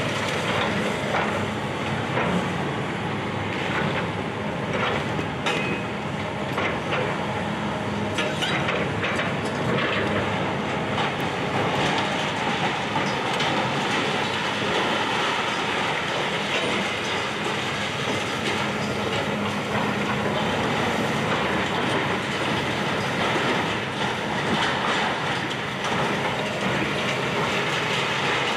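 Excavator demolishing a building: a steady mechanical din with frequent knocks and clattering of broken debris.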